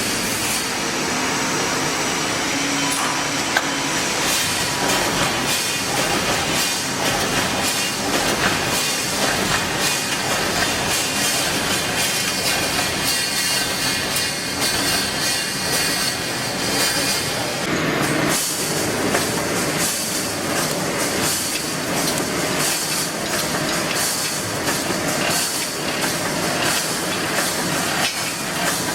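Automatic steel wire mesh welding machine running, with a steady clatter of repeated knocks as it works.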